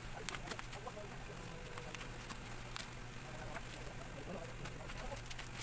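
Scissors snipping through bubble wrap: a handful of short, sharp snips and clicks at irregular intervals over a rustle of plastic.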